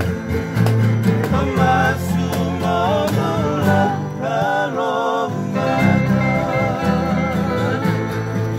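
Fijian sigidrigi string band: acoustic guitars and a ukulele strummed over a plucked bass guitar line, with men's voices singing together.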